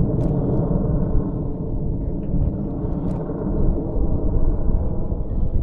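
Steady low rumbling roar of a formation of BAE Hawk T1 jet aircraft flying overhead.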